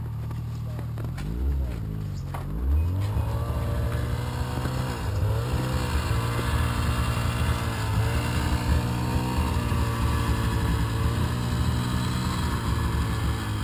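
Snowmobile engine revving up twice in the first few seconds, then running hard at a steady, slightly wavering pitch as it pulls against a tow strap to drag a stuck SUV out of deep snow.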